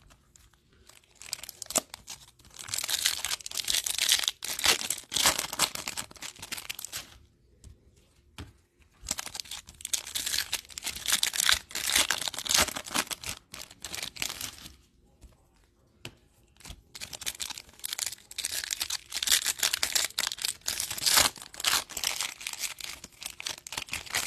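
Topps Chrome baseball card pack wrappers being torn open and crinkled by hand, in three long bouts with short quieter gaps between.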